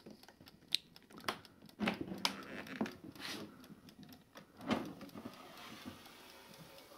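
Handling noise close to the microphone: scattered clicks, knocks and rustles as the camera and the switched-off air fryer are handled.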